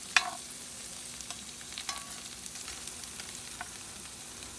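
Red potatoes sizzling steadily in a hot cast-iron skillet as a metal spoon stirs them, with a sharp clink of the spoon against the pan just after the start and a few lighter clinks later.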